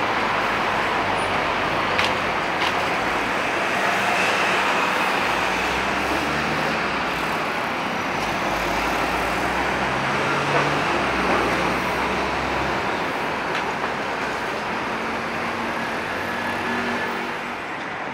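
Steady city street traffic: cars, vans and a box truck driving over cobblestones, engine and tyre noise blending together, with a deeper engine rumble around the middle as the truck passes.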